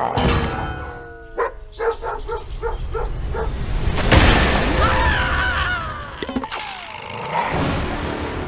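A string of cartoon sound effects: a falling whistle, a quick run of pulsing tones at about three a second, a loud crash about four seconds in, then chirping squeaks and a couple of sharp knocks.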